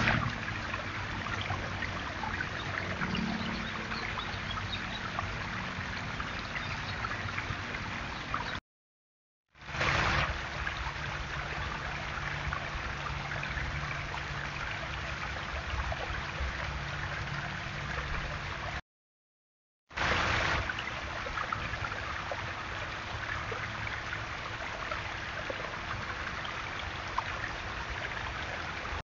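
Small backyard waterfall splashing and trickling over stacked stones: a steady water noise in three stretches, each broken off by about a second of silence.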